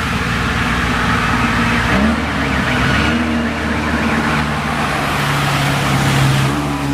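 Racing car engine at a hill climb, running hard with the pitch rising and falling as it changes revs, then holding a steadier lower note in the second half.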